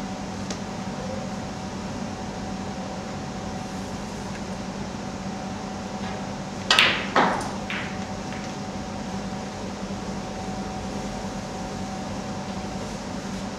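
Snooker balls clicking: two sharp knocks about half a second apart, then two fainter knocks, over a steady room hum.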